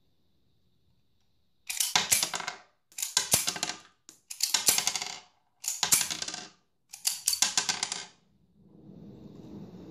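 Slide of a Bruni New Police 9 mm PAK blank pistol racked five times, each a metallic clack followed by an ejected blank cartridge clattering onto a wooden table, as the gun is cycled to unload it. A low, steady rustle of handling follows near the end.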